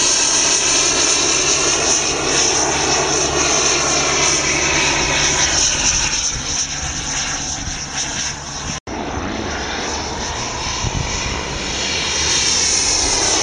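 Radio-controlled scale model A-10's engines whining steadily in flight, the sound sweeping in pitch as the model passes, fading somewhat in the middle and building again near the end. The sound drops out for an instant about nine seconds in.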